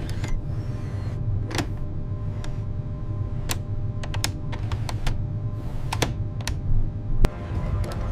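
Control-panel buttons clicking, about a dozen sharp clicks at irregular spacing, over a steady low hum.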